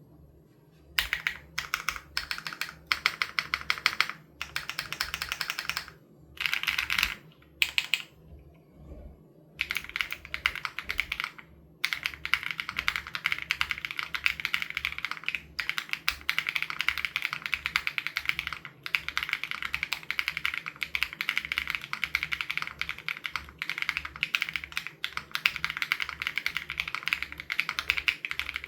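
Typing on an SPM AL87B custom mechanical keyboard with BSUN Raw switches: rapid key clicks. It starts about a second in, comes in short bursts with brief pauses at first, then runs on as fast, near-continuous typing from about ten seconds in.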